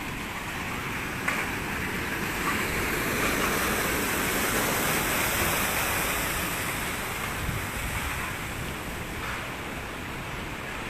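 Steady rushing of muddy floodwater running down a street after a downpour, swelling a little in the middle and easing toward the end.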